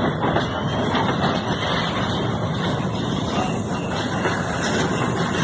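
Freight train flatcars loaded with concrete sleepers rolling past on the rails: a steady rumble of wheels and wagons.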